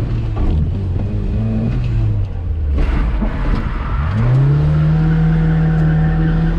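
VAZ 2103's inline-four engine heard from inside the cabin while driving. The revs shift up and down through a gear change in the first half, then climb about four seconds in and hold at a steady higher pitch.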